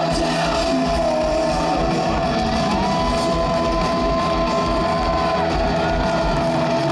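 Industrial rock band playing live and loud: electric guitars and synthesizers over a pulsing beat, with one long held high note from about three seconds in to about five and a half seconds.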